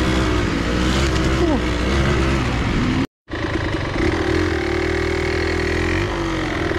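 Enduro motorcycle engine running under load on a rough trail, revving up and down. It cuts out completely for a moment about three seconds in.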